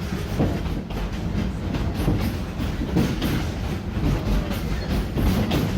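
Wildlife Express Train cars rolling along the track, a steady low rumble with irregular clacking knocks from the wheels on the rails.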